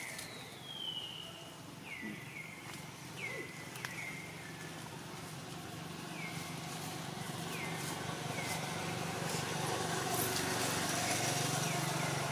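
Short high calls, each falling in pitch, repeated roughly once a second, from an animal among the trees. A motor vehicle's engine hum grows steadily louder through the second half.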